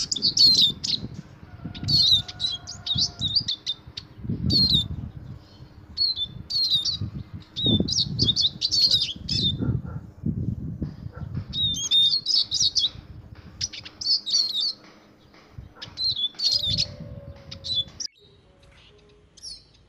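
Male Eurasian siskin singing: bouts of rapid, high twittering phrases broken by short pauses, stopping about 18 seconds in. Bursts of low rumble sound underneath at times.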